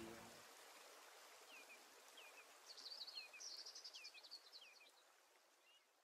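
Faint birdsong over a quiet outdoor hiss. One bird repeats a short, falling chirp about five times, and a higher, quicker twittering joins from about the middle and stops near the end.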